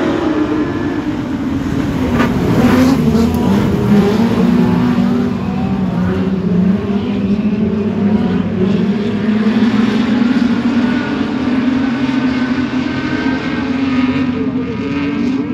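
Speedway production sedan race car engines running hard on the track, the pitch rising and falling as they rev and back off.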